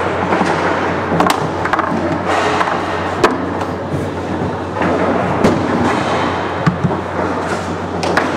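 Foosball play on a competition table: the ball and plastic figures knocking and clacking as the rods are slid and struck, with a few sharper hits scattered through, over a steady hall hum.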